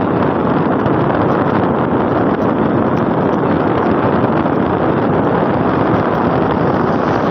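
Steady wind rush buffeting a phone's microphone on a moving motorcycle, with the road noise of the ride mixed in.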